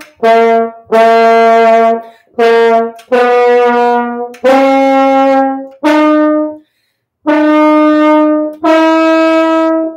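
French horn playing a simple beginning-band melody: about eight separate tongued notes of varying length, with a short rest about two-thirds of the way through.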